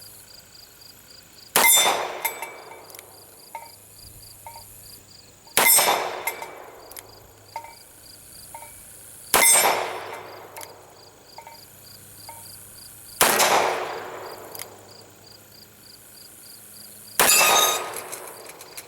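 Five gunshots from a Rossi Model 720 .44 Special revolver firing 240-grain lead semi-wadcutter loads, about four seconds apart, each with a ringing tail and a faint click or two after it. Crickets chirp steadily underneath.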